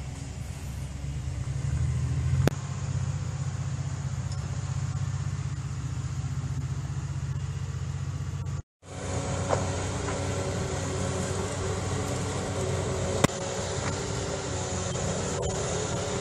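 Diesel engine of a tracked excavator fitted with a tree-felling head, running steadily with a low hum. Sharp cracks come about two seconds in and again near the end, and the sound breaks off for a moment about halfway.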